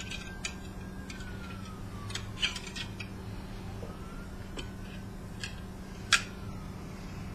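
Pliers clicking and snipping at the copper winding of a small ring-shaped coil, in irregular sharp snaps, the loudest about two and a half and six seconds in.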